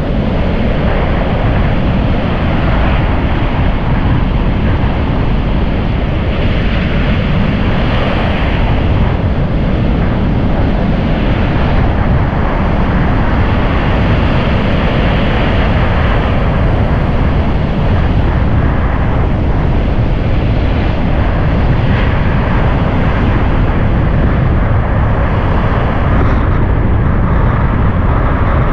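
Strong wind buffeting the microphone in a steady low rumble, over rough surf breaking on a sandy beach.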